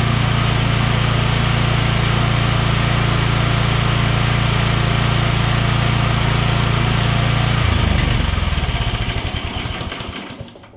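Chipper-shredder's small gasoline engine running steadily. About eight seconds in, its note breaks up and the engine winds down to a stop.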